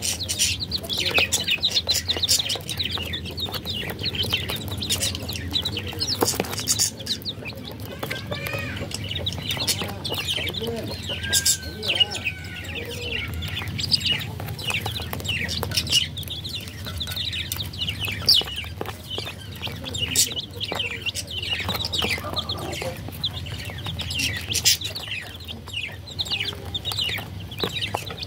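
A brood of baby chicks peeping almost without pause: many short, high chirps that each slide downward, with a few lower calls mixed in. Scattered sharp clicks and a low steady hum sit underneath.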